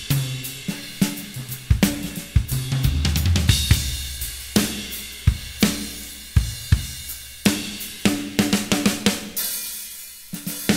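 Background music: a steady drum-kit beat with cymbals and hi-hat over a bass line.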